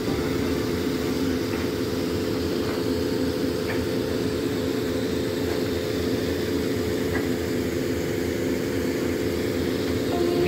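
Fishing boat's deck machinery running with a steady, unbroken drone, over the hiss of water and fish pouring from a fish-pump hose into a deck hopper, with a few faint knocks.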